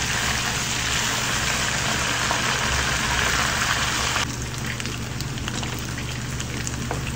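Coated chicken wings deep-frying in hot oil in a small pot: a steady, dense sizzle that drops abruptly to a quieter sizzle about four seconds in. A few light clicks come from metal tongs and a wire strainer in the pot.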